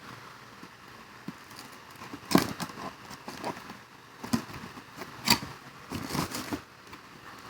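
Packaging and the plastic parts of a lather warmer being handled: rustling and crinkling with a scatter of short clicks and knocks, four of them more distinct.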